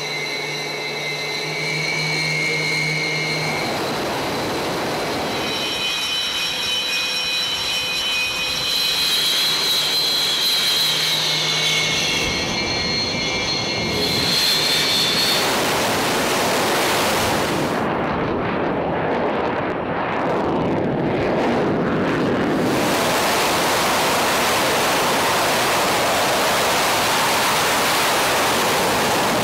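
Twin-engine carrier jet fighter's engines: a steady high-pitched turbine whine for about the first fifteen seconds, then a loud, even jet noise at takeoff power as a fighter runs down the carrier deck.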